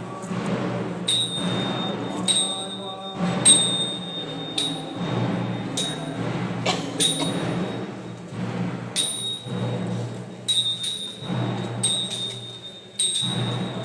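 Temple ritual music: a metal bell struck again and again at irregular intervals, each stroke ringing on briefly, over a steady low drone and drum thuds.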